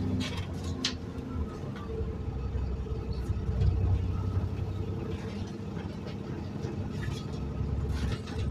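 Interior of an Alexander Dennis Enviro 400 double-decker bus on a Trident 2 chassis on the move: a steady diesel engine drone with the whine of its ZF automatic gearbox. A couple of sharp body rattles come about a second in.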